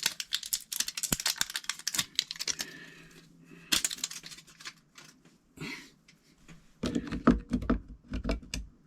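Rapid small plastic clicks and rattles of batteries being handled and pressed into the RV leveler's battery compartment, thinning to a few separate clicks, with low bumps of the device being handled near the end.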